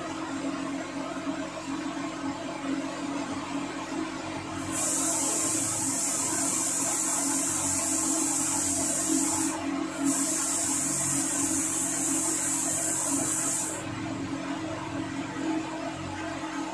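Paint spray gun hissing as air is let through it, a high hiss in two long stretches of about five and four seconds with a brief break between. A steady whir runs underneath.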